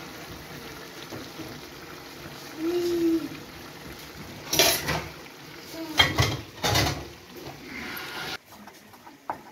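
A pan of braised cabbage and turkey simmering and sizzling on a gas stove, a steady hiss, with a short low hum about three seconds in and several brief louder sounds between about four and a half and seven seconds. Near the end the hiss stops abruptly and only light clinks remain.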